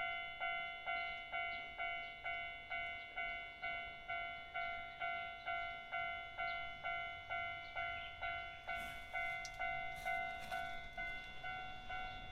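Japanese level-crossing warning bell ringing at an even pace of about two strikes a second, each ding dying away before the next: the signal that a funicular car is coming. In the second half a few sharp clicks and rattles join in.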